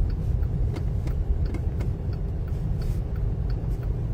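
Steady low engine and road rumble from inside a car driving slowly along a street, with faint regular ticks over it.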